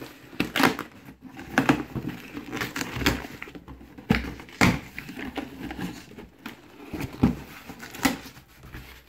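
Cardboard box being pulled open by hand: the taped flaps tearing loose, scraping and crinkling in irregular bursts, with a few sharper knocks.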